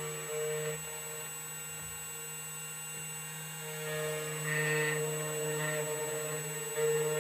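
2M2 Tank CNC key cutting machine running an automatic cut on a key blank: a steady motor hum that grows a little louder about four seconds in.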